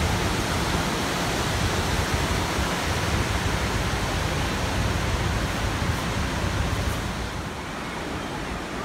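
White water rushing through the spillway gates of a small hydroelectric dam and churning through the river rapids below: a loud, steady rush that eases off a little about seven seconds in.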